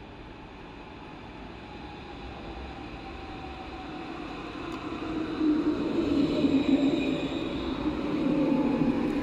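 Alstom Citadis tram approaching and passing close by, its running noise growing steadily louder and loudest from about halfway through. A faint electric motor whine falls gently in pitch as the tram slows.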